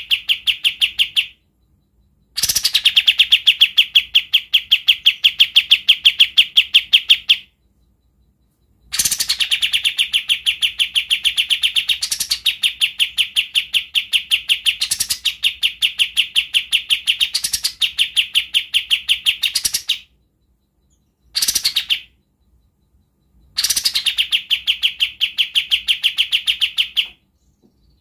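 Kapas tembak bulbul singing its coarse, tightly packed rattling trill (besetan rapat kasar): fast repeated chattering notes in long runs of several seconds, broken by short pauses, with a brief burst about three quarters of the way through.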